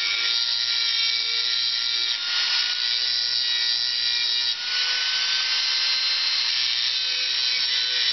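Dremel rotary tool with an orange grinding stone running at speed and grinding a steel AK rifle hammer: a steady high whine over a grinding hiss. The stone is rounding off the hammer's steep edge to cure hammer snag.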